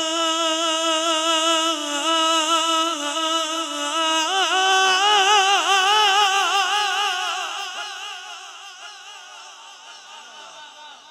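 A man's voice singing a naat unaccompanied into a microphone, drawing out one long wavering melismatic note. The note steps up in pitch about four seconds in, then fades away over the last few seconds.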